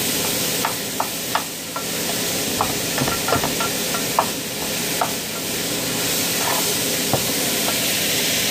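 Steak and vegetables for fajitas sizzling steadily in a hot skillet, while a spoon stirs them, with irregular clicks and scrapes of the spoon against the pan.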